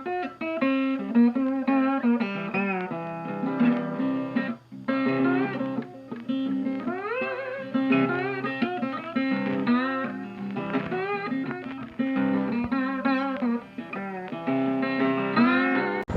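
Intro music: a guitar tune with many notes bending and sliding in pitch.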